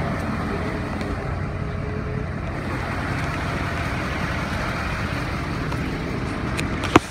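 Pickup truck engine running steadily in the mud, with a sharp click near the end.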